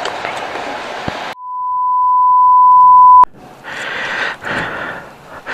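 A single high, steady bleep tone edited into the soundtrack, replacing all other sound. It swells louder for about two seconds and cuts off with a click. Steady outdoor background noise comes before and after it.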